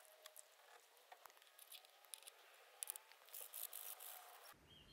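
Faint clicks and small taps of metal horn parts being handled, then a brief scratchy rasp of sandpaper rubbing on metal that cuts off abruptly near the end.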